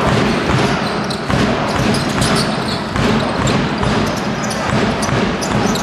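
Live basketball game in a large sports hall: the ball bouncing on the hardwood court among the players' movement, over the hall's crowd noise and voices.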